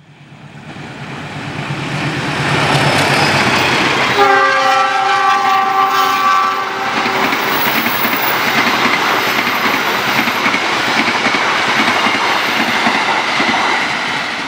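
CC 206 diesel-electric locomotive hauling a passenger train, approaching and passing at speed. Its rumble builds over the first two seconds, and its horn sounds once for about two and a half seconds, about four seconds in. After that come the steady rush and clatter of the passenger carriages going by.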